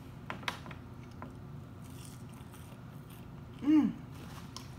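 Biting into and chewing a crispy fried oyster, with a few sharp crunches in the first second or so. About three and a half seconds in comes a short hummed vocal sound that rises and falls in pitch.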